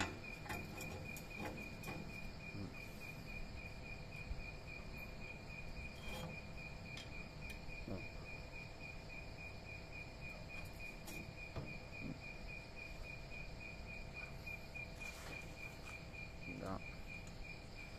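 Cricket chirping steadily, a high note repeating evenly throughout, with a few faint light clicks and taps.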